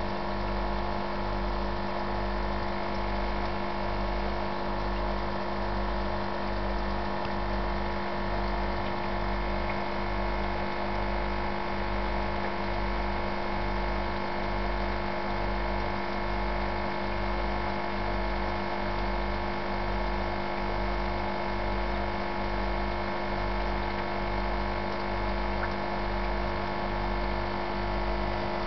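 Aquarium pump humming steadily, with a slow, regular throb underneath and a faint hiss over it.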